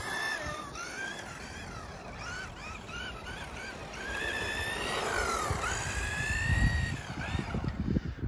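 Kyosho Turbo Optima buggy's Tamiya Superstock RZ brushed electric motor and gearbox whining, the pitch rising and falling as the throttle is worked through the turns, with a deep dip and climb back about five seconds in. A low rumble swells near the end.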